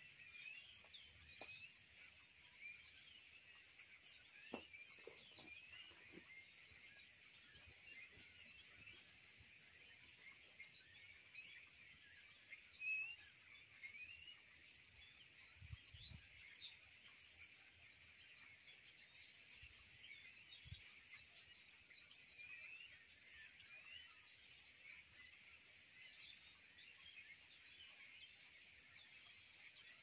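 Faint outdoor ambience of many small birds chirping continuously, with a few soft low thumps.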